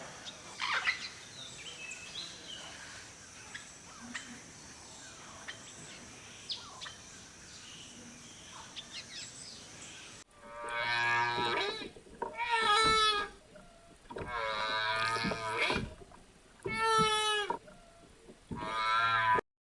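Cattle mooing: five long, wavering calls in a row, starting about halfway through. Before them is a low background hiss with scattered clicks and knocks.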